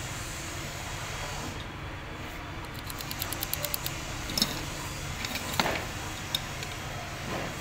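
Small metal parts of a diesel fuel injection pump being handled by hand over a steady background hum. A run of quick light ticks, about seven a second, comes a couple of seconds in, followed by three sharp single clicks as parts are picked up and set down.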